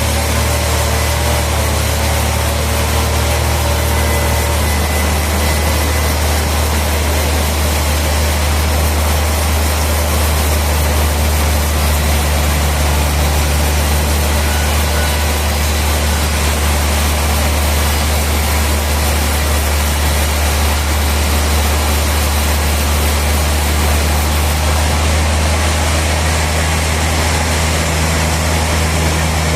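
Sawmill machinery running: a loud, steady low drone with an even hiss above it that does not let up.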